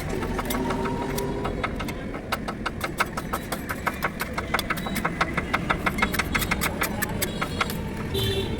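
A low, steady engine rumble under a rapid run of sharp clicks or taps, several a second, loudest in the middle of the stretch.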